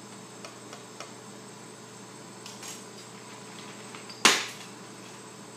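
Steady hum of a laboratory dissolution-test water bath, with a few light clicks and one sharp clack about four seconds in that rings on briefly.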